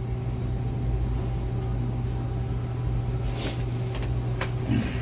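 Steady low hum of running machinery, with a few faint ticks and taps in the second half.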